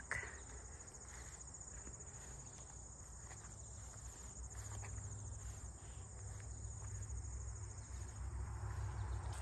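Insects trilling steadily in the garden, a high-pitched, finely pulsing chirr, over a low rumble.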